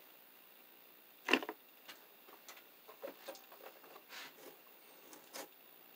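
Handling noise: one sharp knock about a second in, then a run of faint scattered clicks and rustles.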